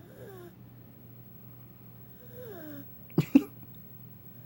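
A sleeping pet snoring, with two drawn-out sounds that fall in pitch and then two sharp, loud sounds close together about three seconds in.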